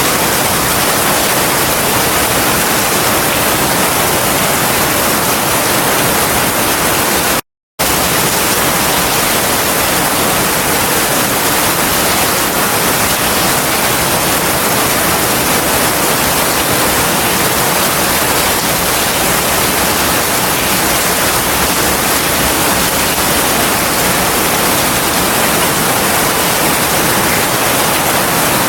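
Heavy rain falling as a steady, even hiss, cut by a brief moment of complete silence about seven seconds in.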